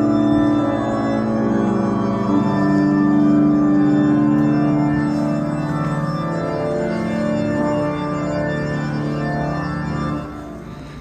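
Organ music: slow, sustained chords held for seconds at a time, dropping in level about ten seconds in.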